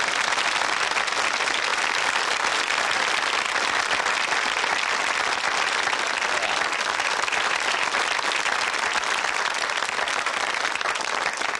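Studio audience applauding, a steady round of clapping from many hands.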